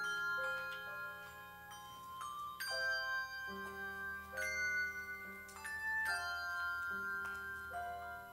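Handbell choir ringing a piece: a new chord of several bells is struck about once a second, each chord ringing on into the next.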